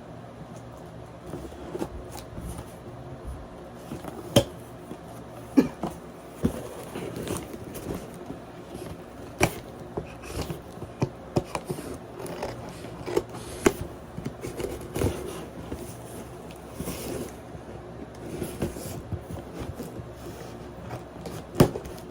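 A parcel being opened by hand: scraping and rustling of the packaging, broken by irregular sharp knocks and clicks, the loudest a few seconds in and near the end.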